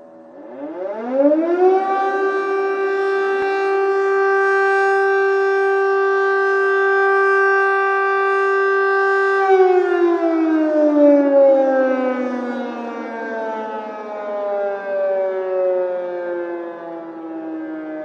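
Air raid siren winding up to a single steady wailing tone within about two seconds and holding it. About nine and a half seconds in it begins a long, slow fall in pitch as it winds down.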